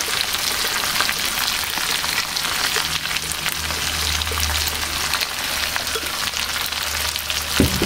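Oil sizzling and crackling steadily in a pan as blended chili and tomato paste fries, with a single sharp knock near the end.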